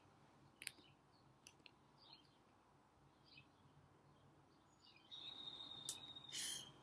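Near silence with faint bird chirps in the background. A click comes about half a second in, and near the end a thin, high, steady tone lasts about a second, followed by a brief rustle.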